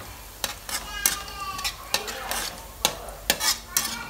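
A spatula scraping and clinking against a steel wok in quick, irregular strokes as minced garlic is stir-fried, with a light sizzle of oil underneath.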